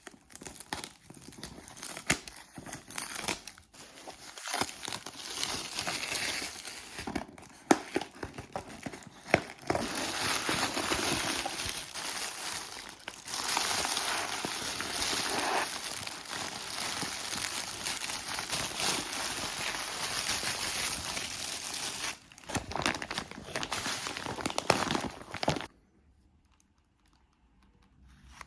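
Packaging being unwrapped by hand: crinkling and tearing with scattered sharp clicks and knocks. It stops shortly before the end.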